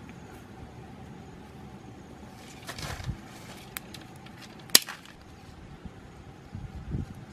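Small open wood fire burning under a stone cooking slab, with one sharp crack a little after halfway and short bursts of rustling and low knocks from handling around it.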